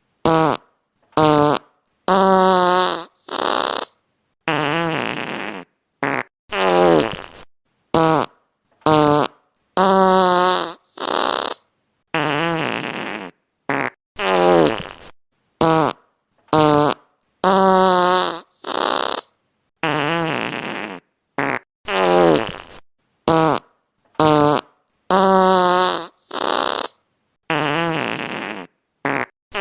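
A string of fart sound effects, one after another with short silent gaps: some short blasts, some long and drawn out, many sliding down in pitch. The same run of sounds comes round again about every eight seconds.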